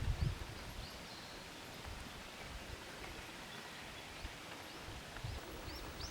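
A small bird chirping faintly, short high chirps that come more often near the end, over a quiet outdoor background.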